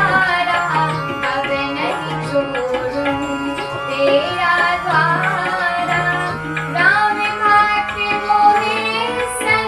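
Music: an instrumental interlude of a Hindi devotional bhajan, with tabla and a melodic instrument gliding between notes.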